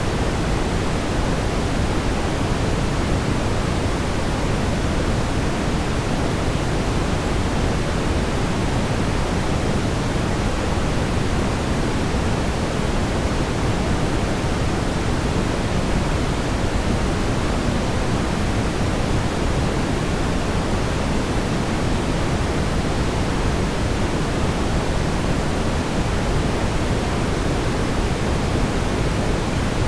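Steady brown noise: an even, unchanging rumbling hiss, strongest in the low end and fading toward the top.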